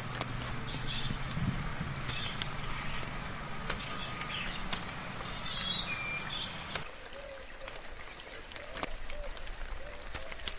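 Birds chirping in short high calls over a steady patter of soft rain, with scattered sharp drips. A low steady hum runs underneath and stops about two-thirds of the way through. After that, a string of short lower calls repeats near the end.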